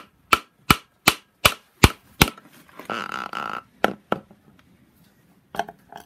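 Sharp taps, about three a second, of a screwdriver worked against the rubber seal that covers the vacuum pump sprocket on a BMW N54 engine's front cover. About halfway through comes a short scrape, then a few more knocks as the seal is pried out.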